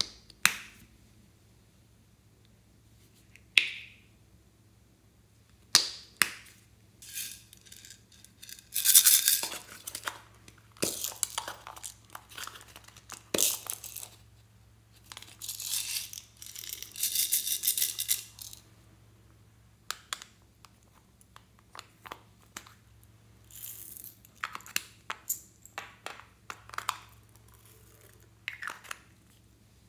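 Hands handling small plastic containers and toys over a bowl of slime: sharp plastic clicks and snaps, with several bursts of crackly, squelchy noise from squeezing and dropping add-ins into the slime.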